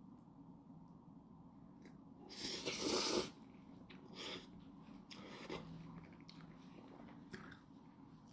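A person slurping up a mouthful of noodles in one loud slurp about two and a half seconds in, then chewing with a couple of smaller slurps.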